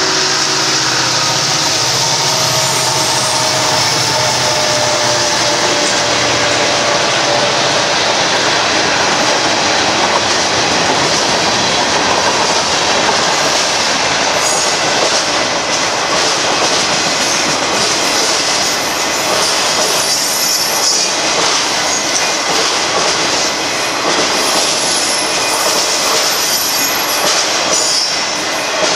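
Union Pacific freight train passing close by. The locomotive's engine hum fades over the first several seconds, giving way to the steady rumble of rolling freight cars. From about halfway through, the wheels click over the rail joints, with brief high squeals.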